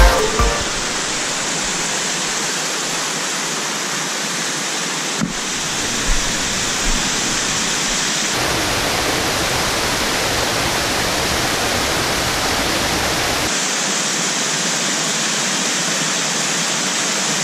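Small waterfalls rushing steadily over rock into a churning pool, an even wash of water noise whose tone shifts abruptly a few times.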